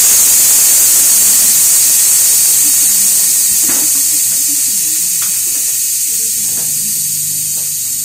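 Air hissing out in a loud, steady stream that slowly fades, with a few faint knocks underneath.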